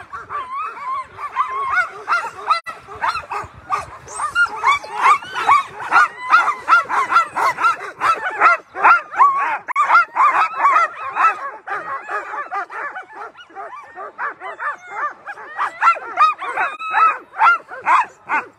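A team of Alaskan husky sled dogs barking and yelping all at once in a continuous din: dogs in harness eager to run, straining to be released at a race start.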